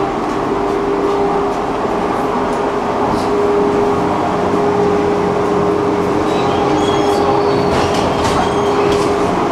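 Electric tram running along its rails, heard from on board: a steady rumble of wheels and running gear under a steady whine, with a few light clicks.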